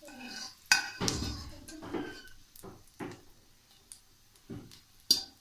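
Wire-mesh skimmer clinking and scraping against a karahi as lightly fried vegetables are scooped out of the pan. There is a run of sharp knocks, the loudest about three-quarters of a second in and another near the end.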